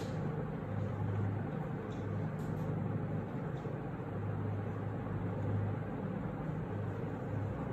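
Steady low hum with a soft, even background hiss: room tone.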